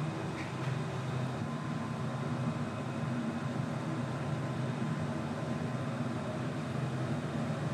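A steady low mechanical hum, even throughout, with a faint high tone running above it.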